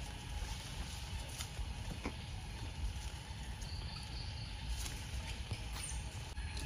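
Outdoor forest ambience: a steady low rumble with a few faint, scattered clicks and rustles, and a brief faint high note about midway.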